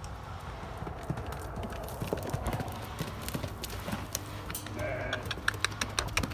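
A horse's hoofbeats on a dirt and gravel paddock as it canters and bucks loose, scattered at first, then a quick run of sharp hoof strikes near the end.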